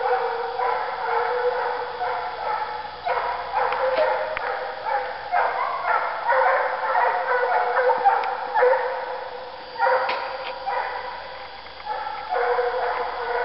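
Russian hounds baying in full cry on a chase, an unbroken run of barks about two or three a second that eases briefly near the end before picking up again. The hounds are running a scent trail.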